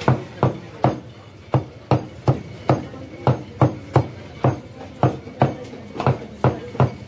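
Butcher's cleaver chopping meat on a block in steady strokes, about two and a half a second.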